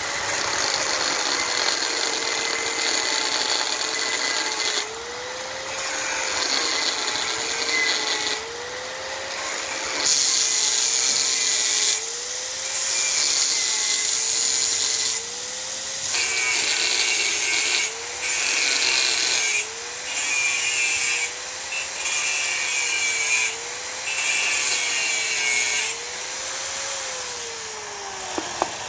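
Power tool cutting through the thin steel casing of a used oil filter: the motor's pitch sags and recovers with each pass as the cut bites, with repeated bursts of harsh hiss from the cut, and the motor winds down near the end.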